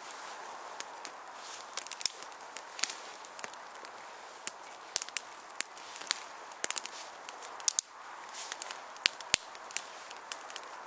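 Small fire of thin twigs and pencil-size kindling crackling as it catches, with sharp irregular pops and snaps over a steady hiss.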